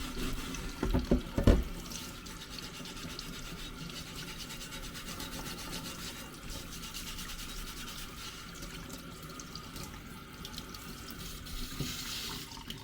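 Grey Scotch-Brite pad scrubbing residue off a steel strut-top reinforcement part fresh from a rust-remover soak, a steady rapid rasping rub. There are a couple of knocks about a second in.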